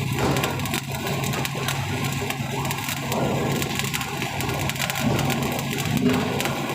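Electric arc welding on steel cage framing: a continuous sputtering crackle of the arc, with a steady low hum underneath.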